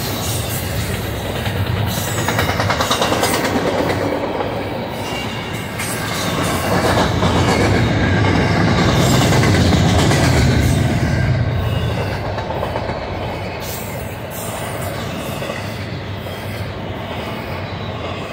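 Double-stack intermodal well cars rolling past: steady wheel-on-rail rumble with rapid clacking of wheels over the track, getting louder around the middle.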